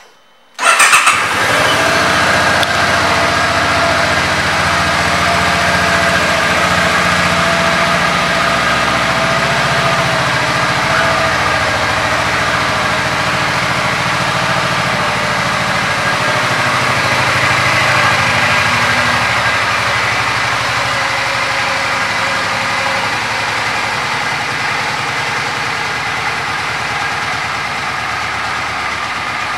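2006 Suzuki Boulevard C50's 805 cc V-twin engine starting about half a second in, then idling steadily and growing slightly quieter toward the end.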